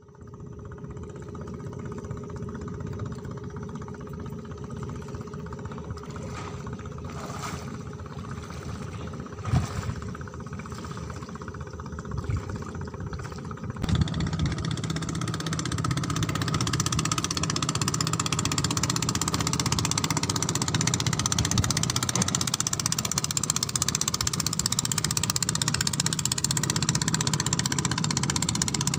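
A motor running steadily with an even hum. About halfway through it turns abruptly louder and noisier.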